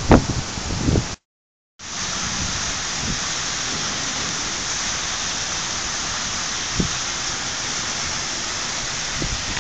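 Heavy rain falling in a steady, even hiss. In the first second wind buffets the microphone, then the sound drops out briefly before the rain comes back; a single small knock comes near the end.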